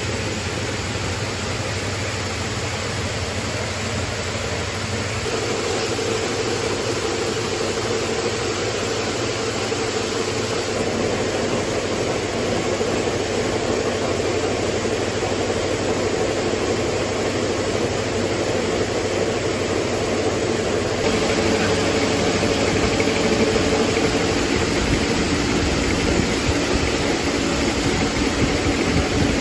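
Shoelace braiding machines running steadily, a dense mechanical rattle over a steady hum. The sound shifts slightly in level a few times.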